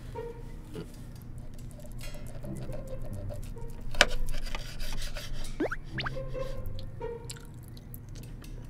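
A kitchen knife and a fork cutting steak on a plate: the blade saws and scrapes against the plate, with small clinks, a sharp clink about four seconds in, and a couple of short rising squeaks a little later.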